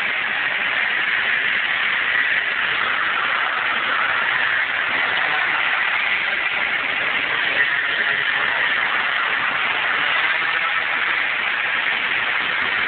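Tuned 50cc two-stroke scooter engine (MBK Nitro with an MHR kit) running steadily as it laps an indoor karting track, a continuous high-pitched engine drone filling a large hall.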